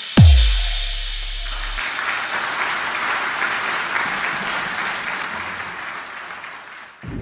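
Intro sound effect: a short rising whoosh, a deep bass boom, then a crowd applauding that fades down near the end.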